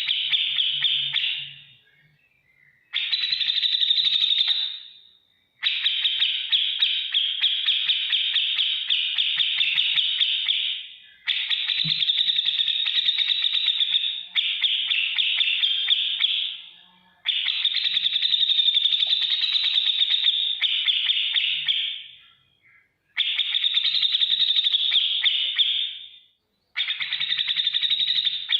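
Cucak jenggot (grey-cheeked bulbul) singing its rapid, ticking chatter in loud bursts of about two to five seconds, each followed by a short pause.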